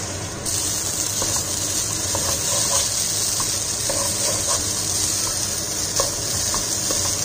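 Rice grains and sliced onions frying in ghee in a nonstick pot over a high flame, a steady sizzling hiss that comes in about half a second in. A spatula stirring through the rice adds light scattered ticks.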